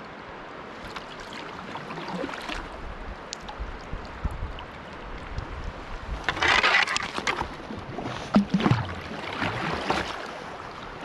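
River water rushing steadily, with louder splashing about six seconds in and more splashes and knocks over the following few seconds.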